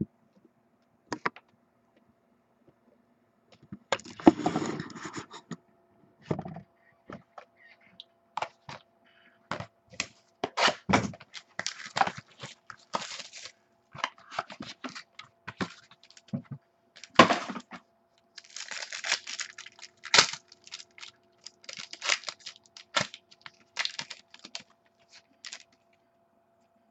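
Trading card packs being torn open and the cards and cardboard handled: a ripping tear about four seconds in, then a run of clicks, taps and scrapes, with more tearing near the middle and again a little later.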